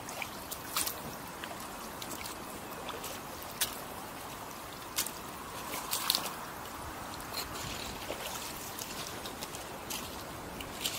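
Wellington boots wading through shallow water over a pebble riverbed, with irregular splashes and stone clicks every second or so, over the steady rush of the flowing river.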